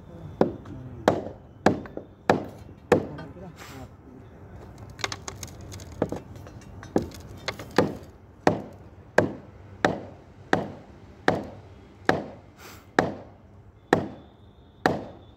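Repeated sharp blows in a steady rhythm, about three every two seconds, each a hard knock with a short ringing tail. The blows break off for about two seconds near the four-second mark.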